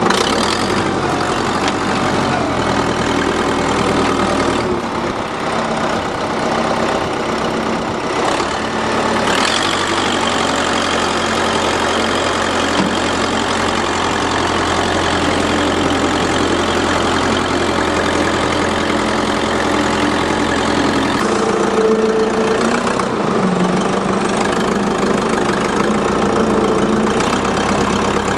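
Engine of the vehicle towing a car, running steadily under way, its pitch shifting a few times as speed or gear changes.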